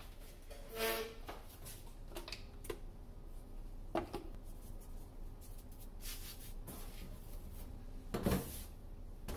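Scattered soft knocks and rustles of hands handling bread dough on a floured worktop, with a short pitched sound about a second in and the loudest thump about eight seconds in.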